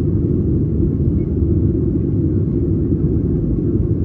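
Steady low rumble of a jet airliner's engines and airflow, heard inside the passenger cabin.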